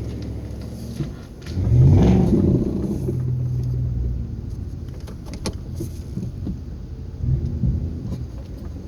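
Ford F-150's 5.0-litre V8 revving under load while the truck drags an uprooted tree on a tow strap. It jumps in loudness about two seconds in and surges again near the end, with a few sharp cracks in between.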